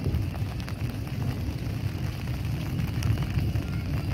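Heavy rain falling steadily, over a constant low rumble, with a few sharp drops hitting close by.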